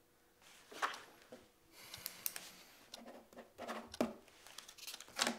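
Pen scratching on paper and papers rustling on a desk, in short irregular strokes, with a few sharp clicks near the end.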